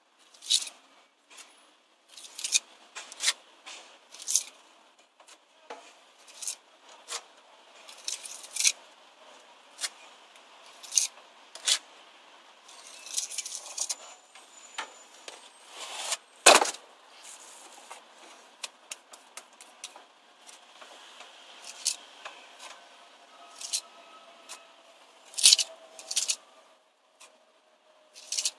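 A steel pointing tool scraping and tapping along fresh mortar joints in brickwork, in short irregular strokes. A louder knock comes about halfway through and another near the end.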